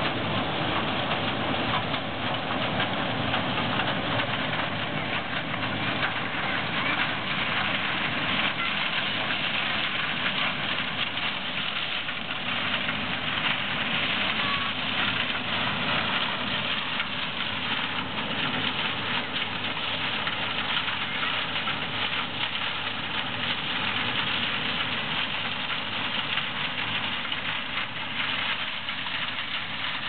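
Claas Lexion 450 combine harvester at work cutting standing maize: the steady, unbroken noise of its engine and threshing machinery.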